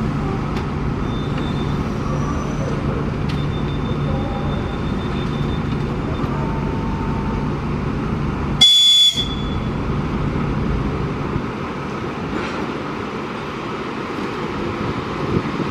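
ED4MKU electric multiple unit standing at a platform, its on-board equipment humming steadily. A little past halfway comes one short, high-pitched whistle blast, the train's signal before it departs.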